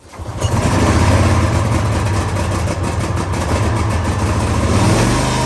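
Mini skid steer's small Briggs & Stratton Vanguard engine running steadily at a loud, even level, with a low steady hum.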